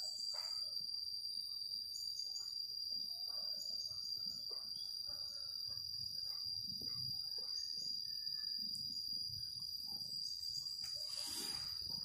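Rural outdoor ambience: a steady high-pitched insect-like whine with scattered faint bird chirps, and a short rustling burst a little before the end.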